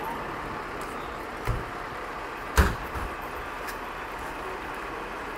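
A fire truck's cab door is slammed shut about two and a half seconds in, with a duller thump a second earlier. Both sound over the steady rumble of the truck and the street.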